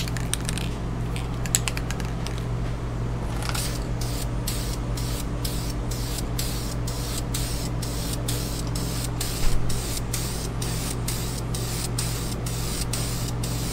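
Aerosol spray can of Dupli-Color engine gloss clear coat hissing as it is sprayed onto a Trick Flow intake plenum. Under it runs a steady low hum.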